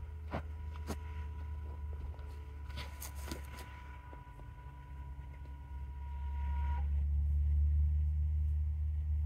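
Low steady hum with a few light clicks. About six to seven seconds in, a louder low motor drone sets in: the solar tracker's electric linear actuators starting to drive the panel frame toward the sun after the controller's short delay in automatic mode.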